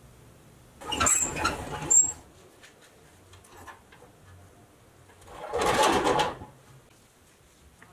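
Rusty pressed-steel toy semi scraping and rattling as its trailer is unhooked from the tractor and lifted off. The sound comes in two bursts: one about a second in, lasting about a second and ending on a sharp scrape, and a second about five and a half seconds in that swells and fades.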